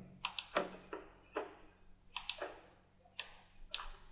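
Computer mouse clicking: a dozen or so sharp, irregularly spaced clicks, some in quick pairs.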